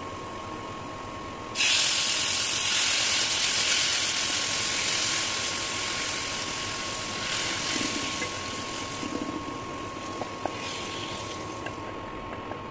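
Curry gravy ladled into hot oil and fried onion slivers in a metal pan: a sudden loud sizzle about one and a half seconds in that slowly dies down over several seconds. A steady high whine from the induction cooktop runs underneath.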